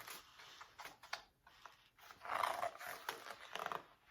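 A child's imitated snore: a breathy, rasping sound lasting about a second and a half, starting about two seconds in, after a few faint clicks.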